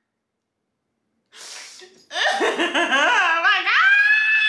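After about a second of silence, a woman's breath, then excited wavering laughter that rises into a long, high-pitched squeal of delight.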